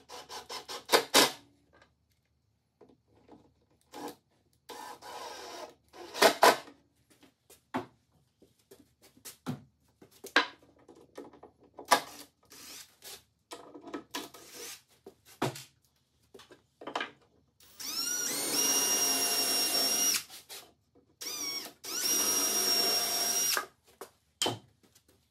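Milwaukee cordless drill/driver running in two bursts of about two seconds each near the end, each spinning up quickly to a steady whine. Before them come scattered clicks and knocks from handling the drawer, the drill and the screws. The audio is sped up to double speed.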